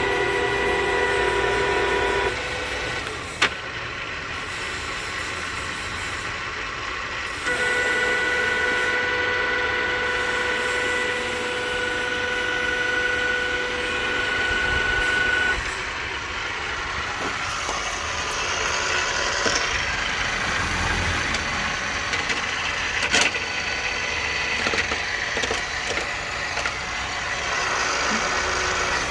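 TOS FGU 32 horizontal milling machine running, its gear train giving a steady whine of several tones that change a few times, with one sharp click a few seconds in.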